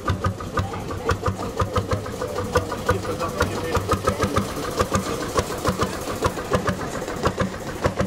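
Historic working narrowboat's diesel engine running at low revs, with a rapid, even beat of exhaust strokes.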